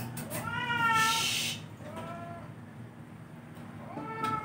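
Domestic cat meowing three times in protest while being bathed, each call rising then falling in pitch; the first is the longest and loudest, the last starts near the end.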